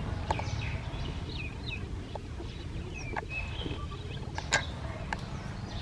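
Scattered short, high chirping animal calls over a steady low rumble, with a few sharp clicks in between.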